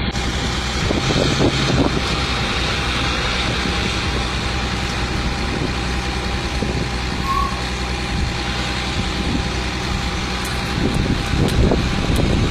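A heavy truck running steadily, getting a little louder near the end, with one short high beep about halfway through.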